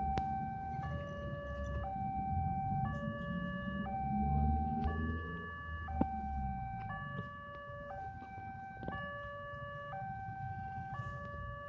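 Electronic two-tone warning signal sounding a steady hi-lo pattern, switching between a higher and a lower tone about once a second, over a low engine rumble with a few sharp clicks.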